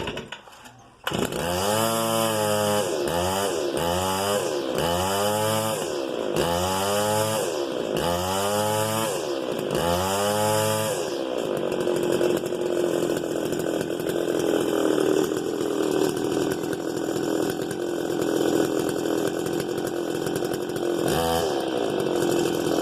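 Stihl FS 290 brushcutter's two-stroke engine revved up and let fall back again and again, then settling to a steady idle about halfway through. It runs with an odd noise that the mechanic says seems to come from inside the engine.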